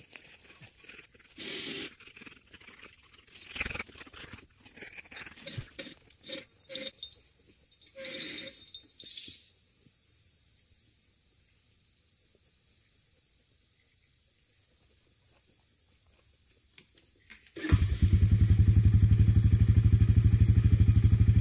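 Scattered faint knocks and rustles, then near the end an ATV engine starts and keeps running steadily with an even pulse.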